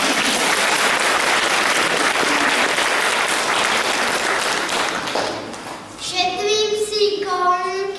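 Audience clapping, a dense even patter that fades away after about five seconds.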